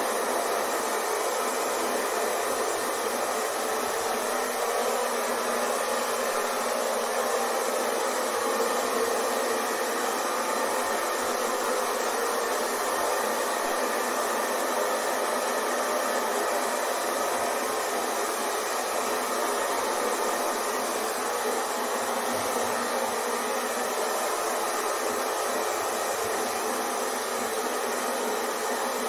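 Hair dryer running continuously: a steady, even blowing whir with a hum, unchanging throughout.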